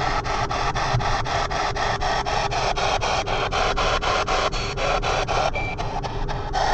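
P-SB7 spirit box radio sweeping the FM/AM bands: a rapid, even stutter of static and broken broadcast snippets at about six or seven jumps a second, with one brief high tone slipping through about two-thirds in. Steady car road rumble sits underneath.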